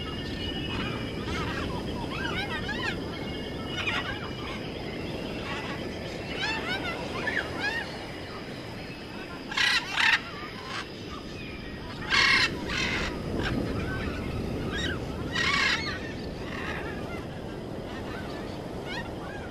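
Birds calling outdoors: many short chirps, with four loud, harsh calls near the middle, over a steady low outdoor rumble.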